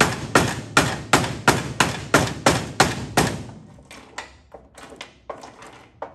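Hammer blows on a block held against the sheet metal of the car body, straightening a crease from an old wreck. They come as sharp, regular strikes about three a second. After about three seconds they give way to a few lighter, scattered taps, then stop.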